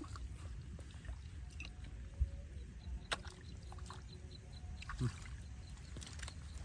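Shallow water sloshing, over a steady low rumble, with a few short knocks.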